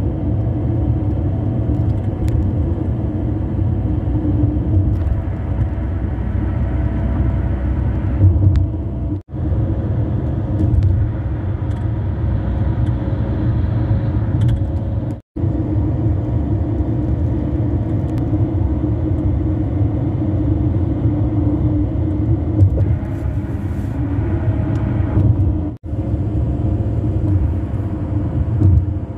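Tyre and road noise inside a car at highway speed on saw-grooved concrete bridge pavement: a steady low hum with a droning tone in it. It cuts out for an instant three times where recordings are joined.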